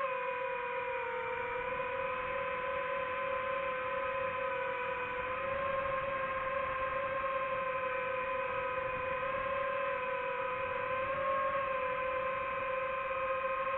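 DJI FPV drone's motors and Gemfan Hurricane 5236 propellers in flight, a steady whining hum whose pitch drifts slightly up and down with the throttle.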